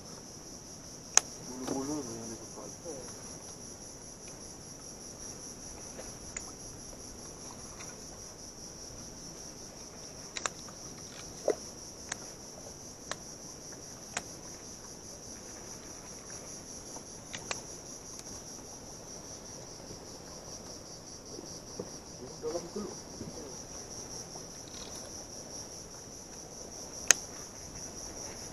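Insects droning steadily at a high pitch, with a few sharp clicks now and then.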